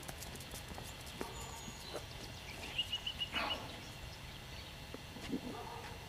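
Faint outdoor ambience with light scattered taps of a person's and a puppy's steps on asphalt. About three seconds in there is a brief run of five quick high chirps.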